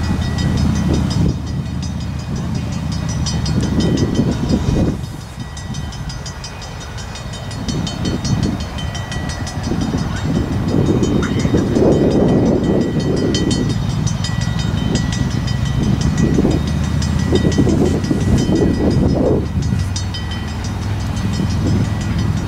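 1923 Montreal Locomotive Works 0-6-0 switcher steam locomotive working slowly, its exhaust chuffing in uneven surges that rise and fall. A fast, even metallic ringing runs high above it.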